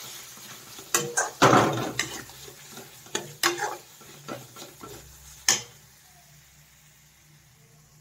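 Steel spatula scraping and knocking against a metal kadai as spiced onion masala is stirred and fried in oil, with a light sizzle. The masala is being fried down (bhuna) in the oil. The stirring strokes stop about five and a half seconds in, leaving a faint low hum.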